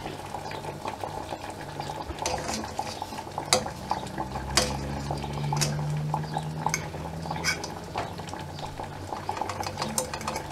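A metal fork stirring melting butter in a frying pan, clicking and scraping against the pan several times while the butter bubbles.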